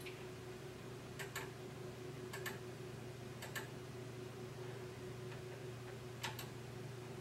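Computer mouse clicking: four sharp double clicks, each a press and release, spaced a second or more apart as pages are advanced, over a steady low electrical hum.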